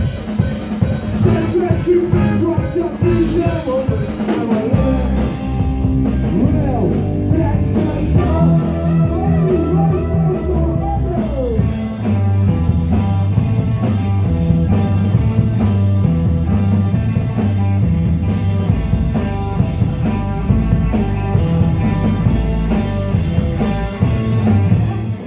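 A live band playing a song through a PA, with bass, drums, electric guitar and a singer. The song stops suddenly near the end.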